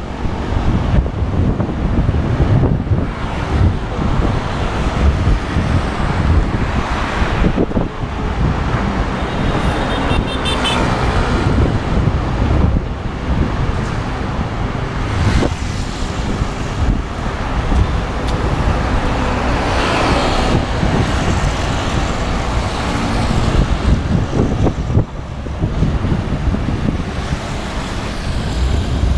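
Steady road traffic noise of cars passing close by, with a low rumble from wind on the microphone throughout.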